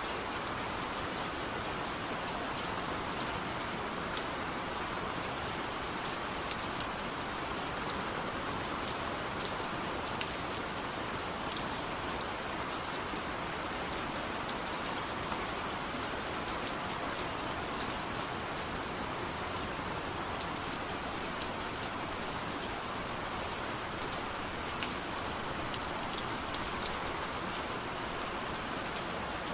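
Steady rain falling, with many scattered sharp drop hits over an even hiss.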